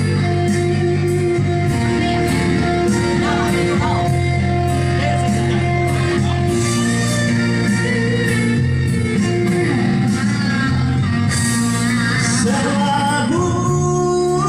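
Live band music with a steady beat and held chords: an instrumental passage between the sung lines of a song.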